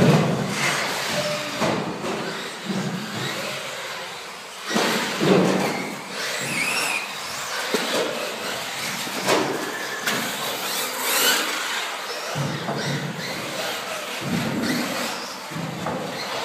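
Radio-controlled cars racing on an indoor carpet track: motors whining up and down in pitch as the cars speed up and slow down, with tyre noise and a few sharp knocks from the cars landing and hitting things.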